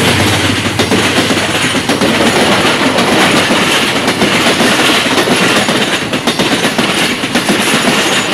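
Passenger coaches of an express train passing close by at speed: a loud, steady rush of running noise with wheel clatter on the rails.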